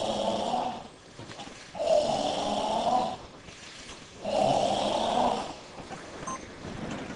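Kyokushin karateka performing a kata together make three long, loud, forceful breaths out, each lasting about a second and coming about two seconds apart. These are the tensed breathing of the kata's slow movements.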